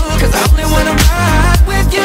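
Background music: an upbeat song with a steady beat and heavy bass.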